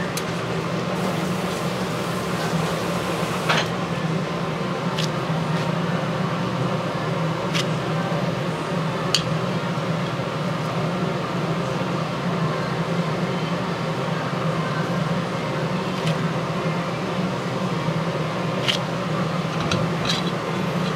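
A steady low mechanical hum, with a handful of sharp clicks scattered through it.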